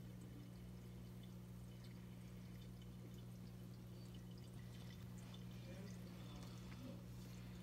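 Near silence: quiet room tone with a low steady hum and faint scattered ticks.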